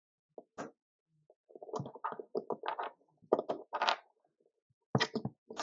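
Allen wrench and needle-nose pliers working a screw and nut on a small plastic-and-metal encoder mount: irregular clicks, taps and rattles of the tools, in clusters with short pauses, as the screws are tightened.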